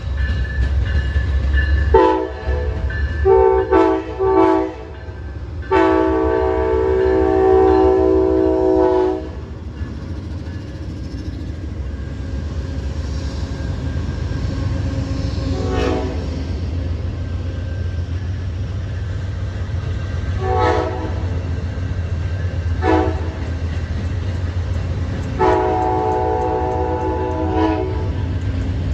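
Amtrak P42 diesel locomotive moving very slowly with a steady low engine rumble, blowing its multi-note air horn: a few short blasts, then a long blast about six seconds in, brief toots in the middle, and another long blast near the end.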